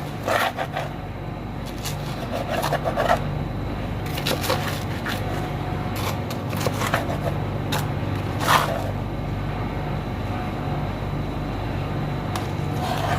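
Crisp baked pizza crust being pulled apart and cut: scattered crackles and scrapes, with a few sharper snaps, over a steady low hum.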